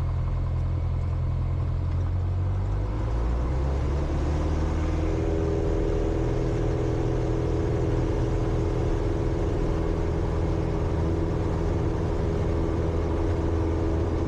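Cessna 172's piston engine and propeller going to full power for takeoff: the engine note changes about three seconds in, then holds steady at full throttle through the takeoff roll.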